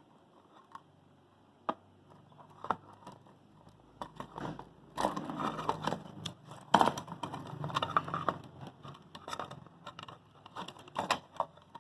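Watch packaging being handled as a small seal is worked off the box: a few isolated clicks, then from about four seconds in a stretch of crinkling and scraping with sharp knocks, the loudest a little before the middle.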